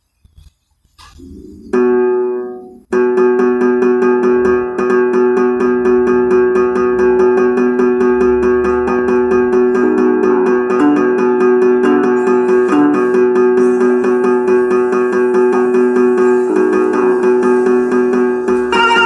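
Instrumental music: a held chord comes in about two seconds in and breaks off, then a loud, dense passage of sustained chords with a fast, even pulse in the high notes carries on.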